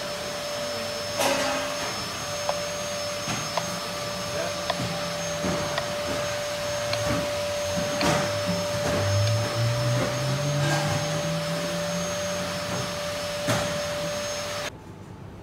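Steady whirring machine noise, like a running motor or fan, with a constant hum and a faint steady high whine. A few light clinks and knocks. It cuts off abruptly near the end.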